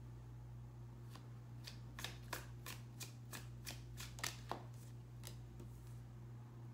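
Tarot cards being shuffled by hand, a faint run of quick, irregular card flicks and taps from about a second in until a little past five seconds.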